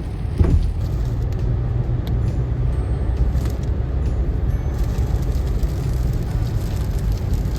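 Steady low road and engine rumble of a moving car heard from inside the cabin, with one brief short sound, falling in pitch, about half a second in.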